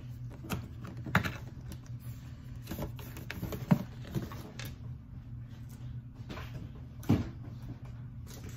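Boxes and packaging being handled and set down: scattered clicks, taps and light knocks, the sharpest about three and a half seconds in and another about seven seconds in, over a low steady hum.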